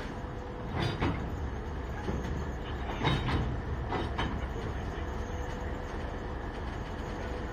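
Alco diesel locomotives running with a steady low rumble while one is shoved slowly along the track, with a few sharp metallic clanks from the wheels and running gear about one, three and four seconds in, the loudest around three seconds.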